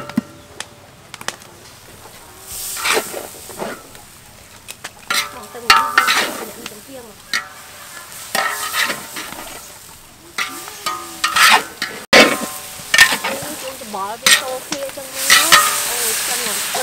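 Metal spatula and ladle scraping and knocking against a large wok as noodles are stir-fried, with irregular sharp strikes over a steady sizzle of frying.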